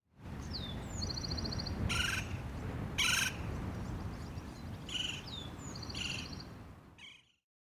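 Birds calling over a steady low outdoor rumble. A phrase of descending whistles and a short rapid trill comes twice, with several short harsh calls between. The sound cuts off abruptly just before the end.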